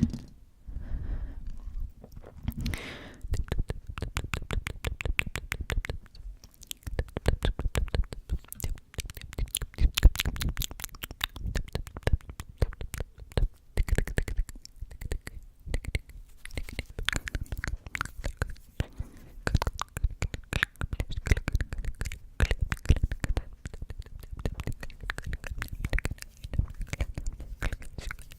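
Fast close-microphone ASMR trigger sounds: a rapid, uneven series of sharp clicks and taps, several a second, with soft low thumps underneath.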